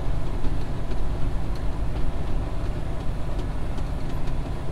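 Semi truck's diesel engine running steadily as the truck rolls slowly, heard from inside the cab as a low, even rumble, with faint scattered ticks over it.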